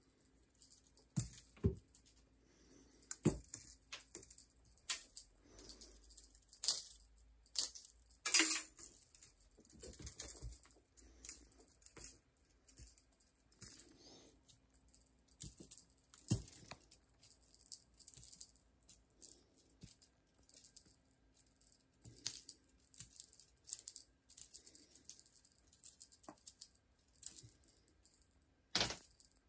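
Light background music with steady shaker and jingle percussion, over irregular sharp clicks and knocks, the loudest about eight seconds in.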